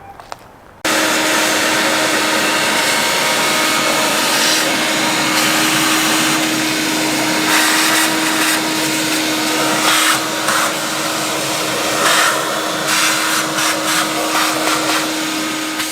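Shop vac switched on about a second in and running with a steady whine, vacuuming acorns and debris out of a car's engine bay, with brief louder rushes as the nozzle moves. It winds down just before the end.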